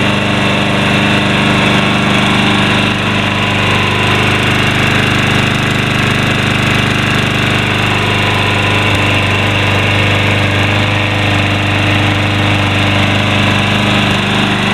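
Troy-Bilt push mower's Briggs & Stratton 675 Series 190cc engine running steadily at an even, unchanging speed.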